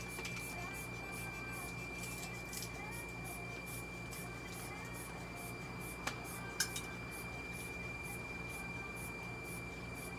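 Steady high-pitched whine over a low hum from running ventilation fan and clinic equipment, with two short clicks a little after six seconds in.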